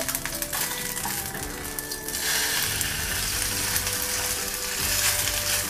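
Minced fish patty sizzling as it fries in oil in a non-stick wok; the sizzle grows louder about two seconds in.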